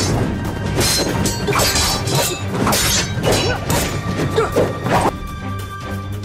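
Background music overlaid with a rapid run of crash and smash hit effects, about two to three a second, which stop about five seconds in, leaving only the music.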